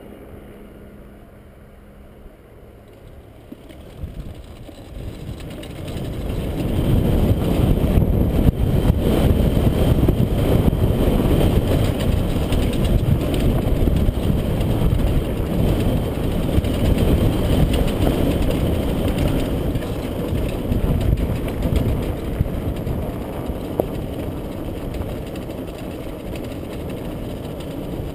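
Helicopter rotor and engine noise building up about four seconds in and loud by about seven seconds, as the helicopter takes off. It then eases a little toward the end.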